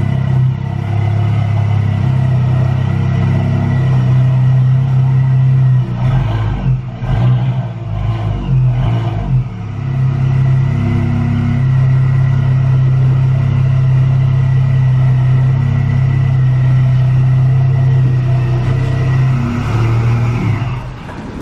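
Supercharged Dodge car engine running at low speed as the car is manoeuvred in reverse, a steady low hum. From about six to nine and a half seconds in, the engine note wavers with brief throttle changes, and it drops away just before the end.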